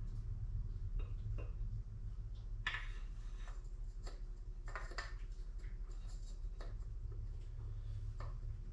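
Light metallic clicks and short scrapes of a piston and connecting rod being turned and positioned to go into the engine block. These sound over a steady low hum.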